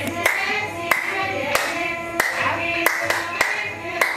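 Voices singing an Ethiopian New Year song in Amharic over steady hand claps, a little more than one clap every half second.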